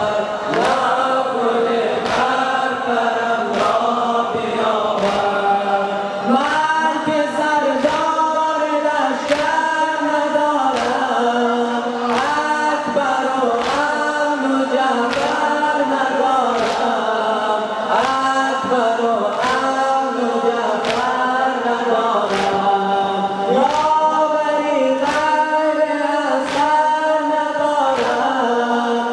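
Male voices chanting an Afghan noha, a Shia mourning lament, together with a large crowd. Under the chant, many people beat their chests in unison (sina zani), a steady rhythm of roughly one and a half strikes a second.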